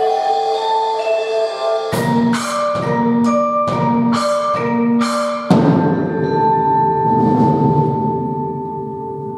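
Percussion ensemble with mallet instruments and drum kit. Pitched mallet notes are held at first, then come about seven sharp struck chords roughly half a second apart. About five and a half seconds in, a loud final hit rings on and slowly fades.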